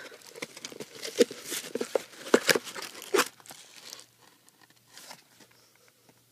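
Paper sample card being torn open and crinkled by hand: a run of sharp tearing and crackling for about three seconds, then a few faint rustles.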